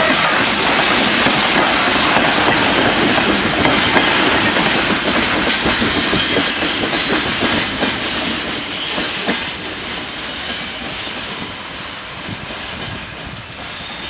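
Freight train wagons rolling past, their wheels clacking over rail joints, the sound fading steadily over the second half as the train moves away.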